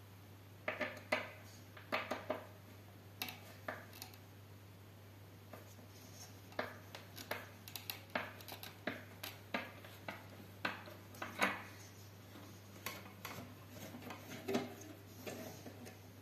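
Irregular clinks, taps and knocks of hands working on an LED floodlight's finned metal housing on a tabletop.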